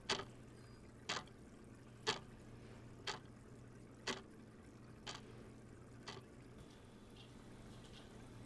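Clock ticking once a second, sharp ticks that fade away after about six seconds, over a faint steady low hum.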